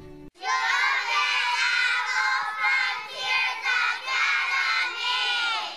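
A group of young children calling out together, many high voices overlapping loudly, fading away just before the end.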